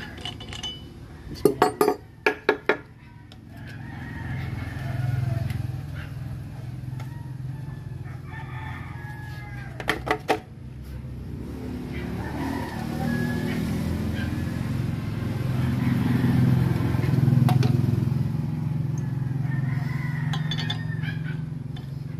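Roosters crowing again and again over a low steady rumble that swells in the second half. About a second and a half in comes a quick run of about five sharp metallic knocks from hand tools on the crankshaft parts, and two more come about ten seconds in.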